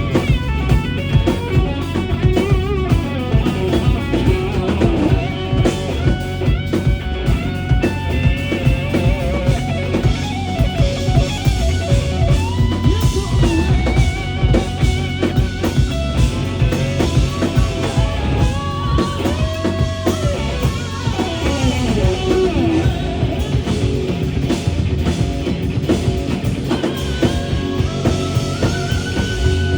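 Rock band playing an instrumental passage live: guitar lines with held, bending notes over a drum kit and a heavy low end.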